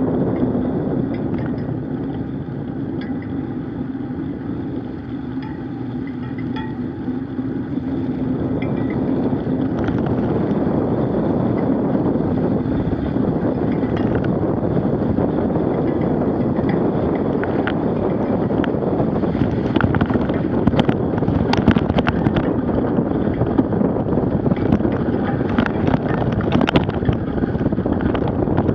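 Bicycle's knobby tyre rolling along a road, with wind rushing over the microphone. For the first several seconds it makes a steady low hum on bare wet asphalt; then, on packed snow and slush, the noise turns rougher, with scattered knocks and rattles that grow more frequent in the later part.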